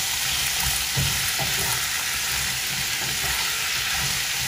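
Chopped onion and red bell pepper sizzling in oil in a stainless steel pan, stirred with a silicone spatula. A steady sizzle runs under irregular soft scrapes of the spatula against the pan.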